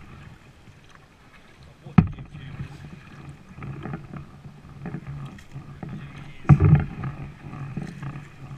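Kayak pushing through reeds and floating weed, with stems scraping and knocking along the plastic hull. There is a sharp knock on the hull about two seconds in and a louder burst of knocks near the end.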